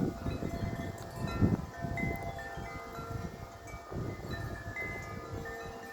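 Several wind chimes ringing in strong wind, overlapping tones struck again and again and left to ring, over wind rumble on the microphone that eases off toward the end.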